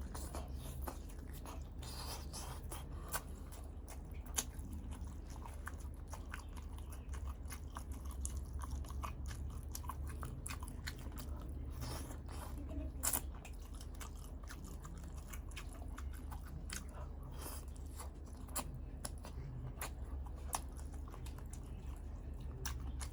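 A person chewing balut, a boiled fertilised duck egg with its embryo, close to the microphone: irregular small clicks and mouth noises, with a few sharper ones.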